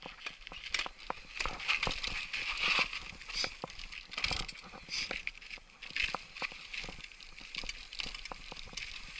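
Trek Superfly mountain bike riding down a rocky, sandy trail: the tyres crunch over loose grit and rock while the bike clacks and rattles sharply over each bump, in a rapid, irregular stream of knocks.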